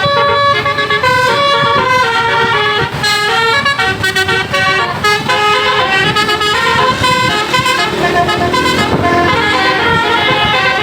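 Telolet basuri multi-tone bus horn playing a fast tune of stepped notes without a break.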